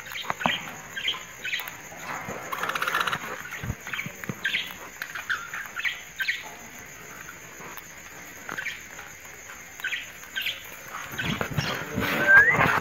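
Budgerigars chirping in short, irregular calls, with a rising whistled note near the end.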